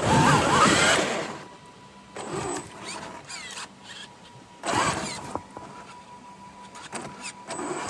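Traxxas X-Maxx RC monster truck's brushless motor revving in short bursts with a rising whine, tyres scrabbling as it climbs a steep slope. The longest, loudest burst is at the start, with shorter ones a few seconds later.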